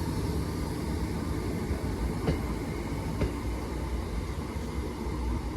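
Class 319 electric multiple unit departing: a steady low rumble of the train running, with two faint clicks about two and three seconds in.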